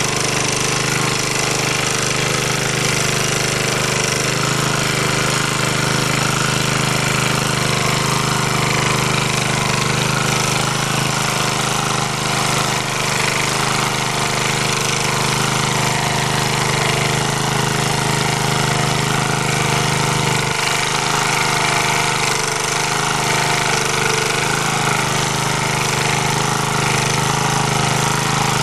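MD3 walk-behind tractor's engine running steadily in first gear while its rotary tiller churns the soil, its pitch wavering slightly as the load changes.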